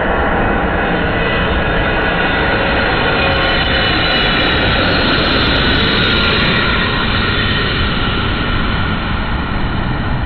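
Jet airliner on final approach passing low overhead: a loud, steady engine roar with high whining tones, swelling in the middle and cutting off abruptly at the end.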